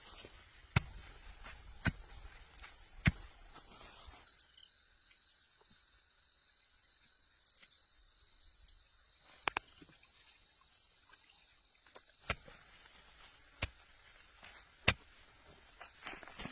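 A series of sharp, single knocks, about one a second at first, then a quiet stretch, then a few more spaced irregularly, over a faint steady high tone.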